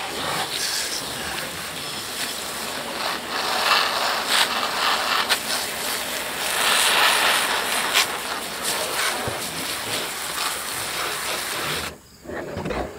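Garden hose spray nozzle jetting water onto a chainsaw, a steady spattering hiss that surges as the spray moves over the housing and bar, then stops near the end.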